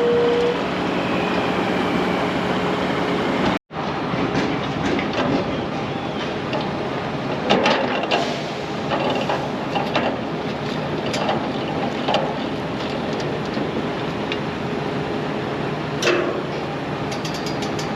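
A vehicle engine runs steadily while heavy farm equipment is moved, with loose metal clanking and rattling at intervals, loudest about halfway through, and a quick run of ticks near the end.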